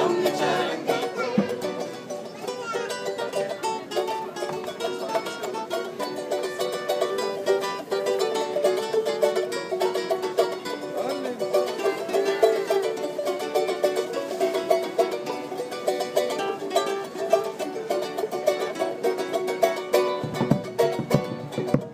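Andean folk ensemble playing an instrumental passage: a charango and a classical guitar strumming and picking a lively tune. Near the end a bombo drum comes in with steady low beats.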